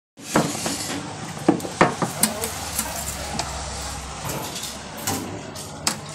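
Handling clatter on a worktable: a handful of sharp knocks as a number plate blank is laid down and a steel ruler set on it, over a low steady hum.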